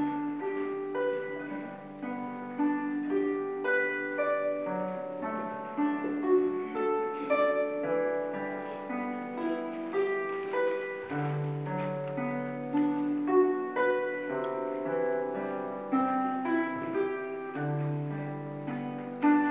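A harp played solo: plucked strings ringing in a steady, flowing melody with low bass notes sounding under it every several seconds.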